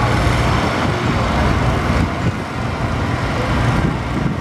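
Farm tractor's diesel engine running hard under heavy load as it drags a weight-transfer pulling sled, a steady loud rumble with no let-up.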